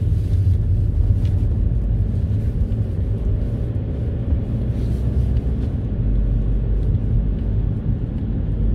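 Car driving at steady speed, heard from inside the cabin: a steady low rumble of engine and road noise.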